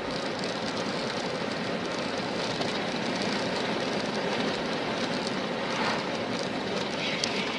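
Steady road and wind noise of a car cruising at highway speed, heard from inside the cabin.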